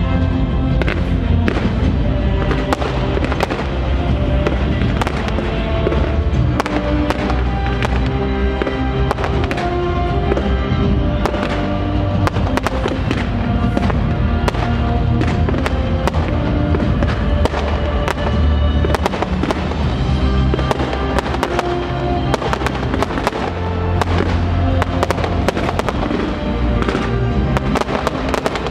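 Aerial fireworks bursting in quick succession, many sharp bangs and crackles, over music playing.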